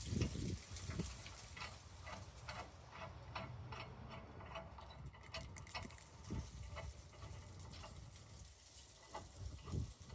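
Hand tools working on the truck's rear suspension hardware: an irregular run of sharp clicks and light metal knocks, as the lift-kit bolts are tightened.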